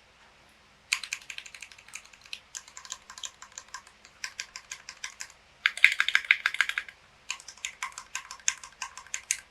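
Typing on a Tofu 60 acrylic-case mechanical keyboard with stock Gateron Milky Yellow linear switches and PBT keycaps: rapid keystroke clacks in several bursts starting about a second in, with short pauses between them. The densest and loudest flurry comes just past the middle.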